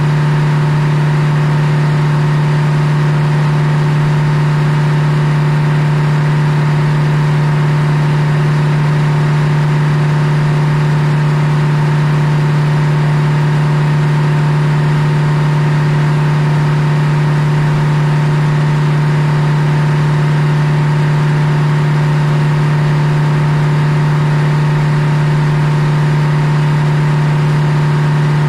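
Old belt-driven circular sawmill running, a loud, unchanging drone with a strong low hum and a hiss of noise above it.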